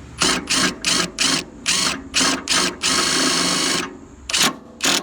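Cordless brushless 1/2-inch impact wrench (Ridgid Octane 18 V) hammering as it tightens a lawn mower blade nut with a 24 mm socket: a string of short trigger bursts, a longer run of about a second, then two more short bursts.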